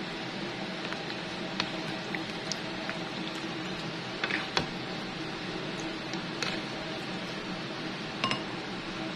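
A black cooking ladle stirring thick stew in a metal frying pan, knocking against the pan several times in short sharp clinks, over a steady background hiss and hum.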